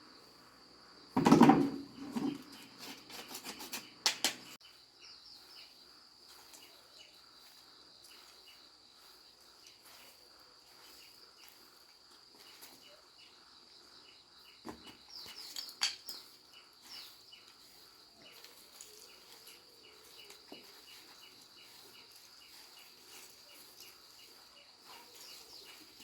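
Steady high-pitched chirring of insects in the background throughout. A loud, brief rustling or clattering noise comes about a second in, and a few sharp knocks and clicks follow around 4 s and again around 15 s.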